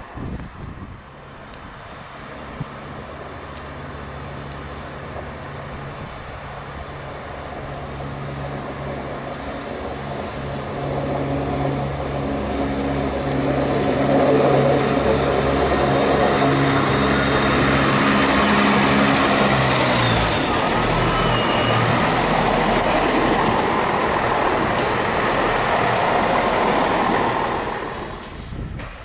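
ScotRail Class 170 Turbostar diesel multiple unit pulling out and running past, its underfloor diesel engines growing steadily louder as it approaches. About two-thirds of the way through the engine note stops and gives way to the loud rush of the train passing close by, which drops away near the end.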